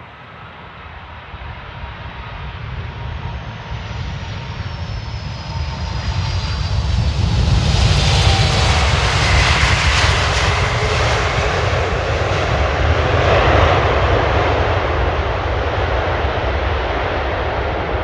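Heavy jet airliner's engines during a landing: a rumble and rush that build over several seconds to a loud peak and then ease off slowly, with high whine tones sliding down in pitch as it approaches.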